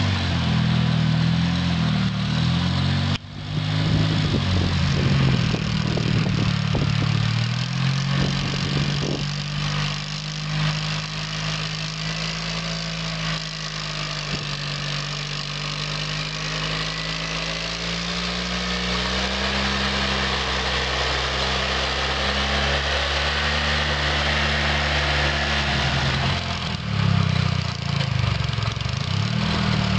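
Homemade tractor's two-cylinder Oka car engine running steadily, its note dipping and rising now and then as the load changes. There is a brief break about three seconds in.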